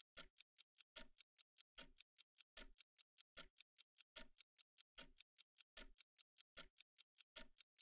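Rapid, even clock-like ticking of a quiz countdown timer marking the time to answer, several ticks a second, with a heavier tick a little under once a second.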